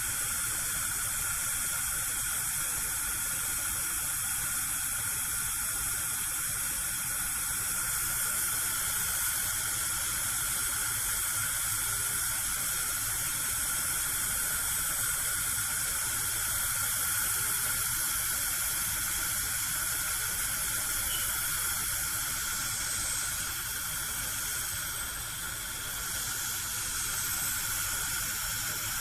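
Gas cooker burner alight, its flame giving a steady hiss.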